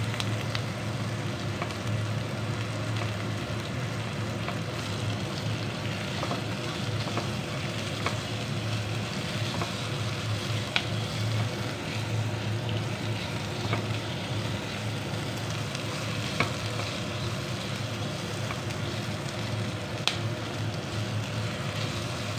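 Chopped onions sizzling in a nonstick frying pan as a spatula stirs them, with a few sharp clicks of the spatula against the pan. A steady low hum runs underneath.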